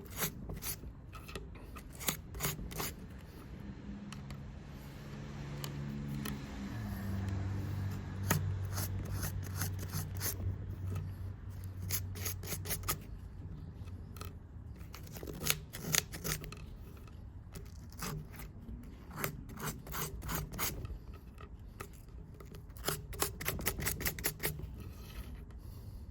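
Rust being scrubbed off the small steel parts and gears of Felco No. 2 pruning shears by hand: quick, irregular rasping strokes of an abrasive against metal, with a short pause about halfway through. A steady low hum runs under the strokes through the first half.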